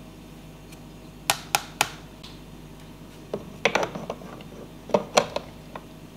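Metal clicks and knocks of an espresso machine's portafilter: three sharp taps about a second in, then two quick clusters of clicks and scrapes as the portafilter is pushed into the group head and twisted to lock.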